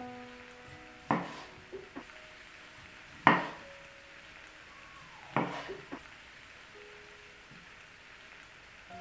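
Food sizzling in oil in a frying pan, with three short clatters of a spatula against the pan, the loudest about three seconds in.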